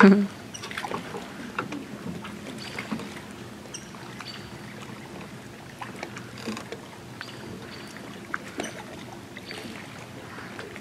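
Calm lake water lapping and knocking gently against a moored pontoon boat's hull, with many small irregular clicks and a few faint high chirps. A single loud thud comes right at the start.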